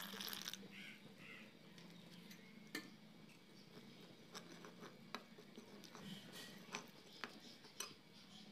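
Water poured briefly into gram flour in a clay bowl, then a steel spoon stirring the thick batter, with scattered sharp clicks of the spoon against the bowl.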